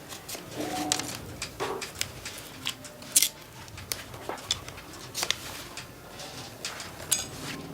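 Irregular sharp clicks and taps of bamboo strips being worked and handled by hand, several a second, with one louder crack about three seconds in.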